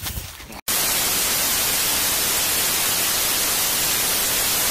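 Loud, steady TV static hiss (analog 'snow' noise) that cuts in abruptly about half a second in, replacing the outdoor sound.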